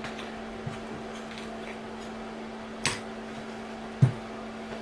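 Steady electrical hum with a sharp click about three seconds in and a dull thump a second later, from small hardware being handled.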